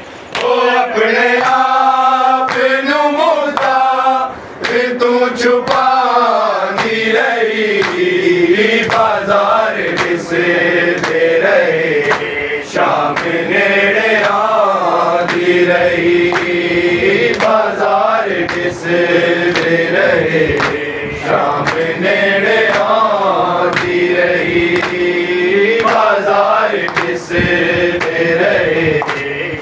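Men's voices chanting a noha in unison, with hands striking chests in a steady beat (matam) over the chant.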